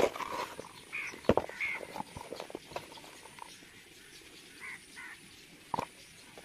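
A wooden spatula and hands knocking and scraping in a plastic bowl of mud: a few sharp knocks and lighter clicks. Short bird chirps sound in the background.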